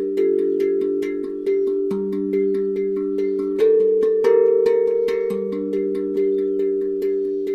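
Background music: an instrumental piece of plucked or struck notes in a steady rhythm over sustained tones.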